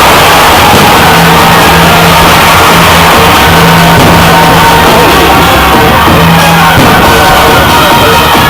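Loud, heavily distorted music at full level, with held notes that sound in phrases of a second or two over a dense wash of noise.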